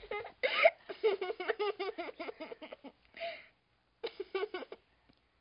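High-pitched cartoon voices giggling in quick short bursts that trail off, then one last short giggle about four seconds in.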